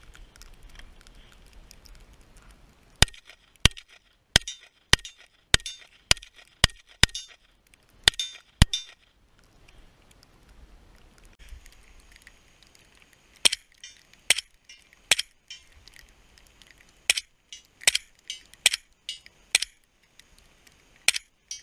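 Suppressed .300 AAC Blackout AR-15 pistol firing two strings of about ten shots each, at roughly two shots a second, with a pause of about five seconds between them.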